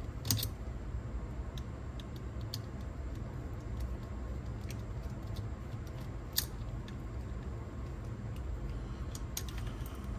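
Screwdriver working out screws from a cassette deck's capstan assembly: a few scattered small metallic clicks and taps, the sharpest about a third of a second in and again about six seconds in, over a steady low hum.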